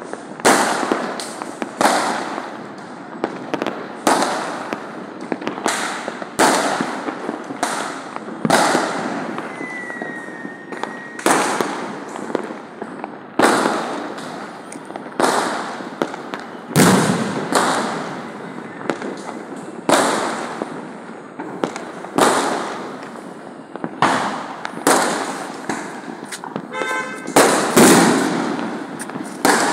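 Fireworks going off in a steady run of loud bangs, one every second or two, each trailing off in echo.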